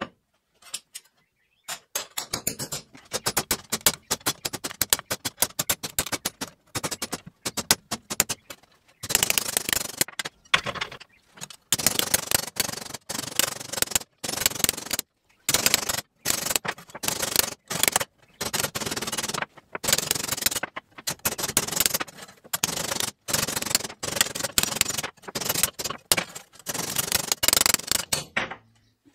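Ball-peen hammer striking steel flat bar over a steel former held in a vise: rapid, repeated metallic blows with short pauses, as the bar is bent into a ring. The hammering starts about two seconds in.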